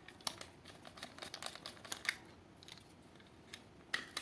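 Faint, scattered small clicks and scrapes of a stripped copper wire and the metal screw terminal of a wall socket being handled, as the trimmed neutral wire is pushed into its terminal and does not go in fully.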